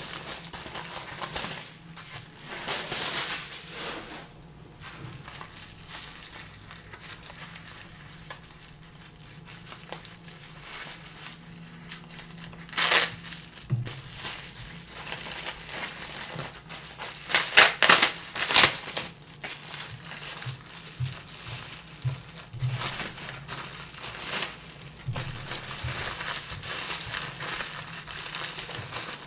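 Clear plastic wrapping crinkling and crackling as it is handled and pulled off a wristwatch, in irregular bursts. The loudest crackles come about 13 seconds in and again around 17 to 19 seconds.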